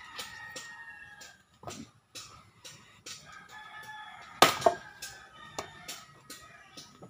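Axe blows splitting firewood: a few sharp chops on the wood, the loudest about four and a half seconds in. A rooster crows in the background.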